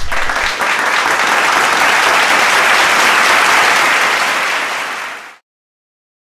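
Applause, a dense even clapping that holds steady and then fades out about five seconds in.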